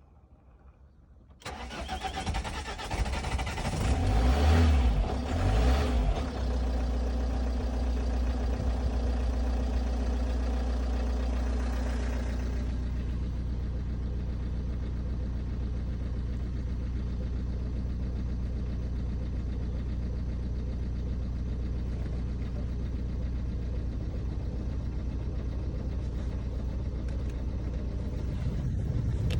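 Ford S-Max 1.8 TDCi diesel engine starting about a second and a half in, running unevenly with a couple of revs for a few seconds, then settling into a steady idle.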